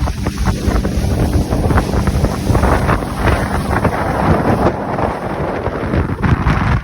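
Mercury outboard motor running steadily as a pontoon boat moves along, its engine note partly buried under heavy wind noise on the microphone.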